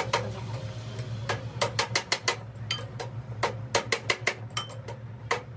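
Hand hammer tapping on metal: irregular sharp strikes, about three or four a second, some leaving a short metallic ring, over a steady low hum.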